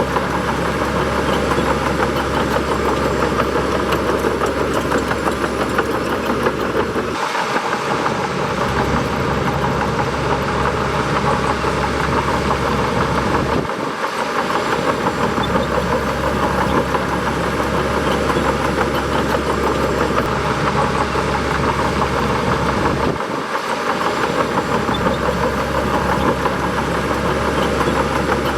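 Bulldozer's diesel engine running steadily, with brief drops in its low rumble about 7, 14 and 23 seconds in.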